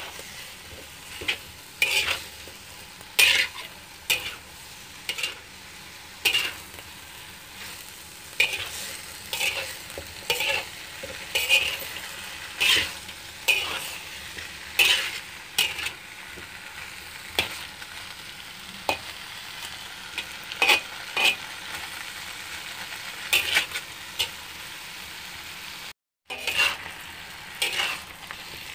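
Bitter melon and beef stir-frying in a wok: a steady sizzle, with the metal spatula scraping and tossing the food about once a second. The sound drops out for a moment near the end.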